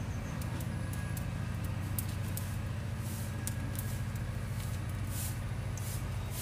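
A steady low mechanical hum, like an engine running, with scattered sharp crackles from the wood fire burning under the wok.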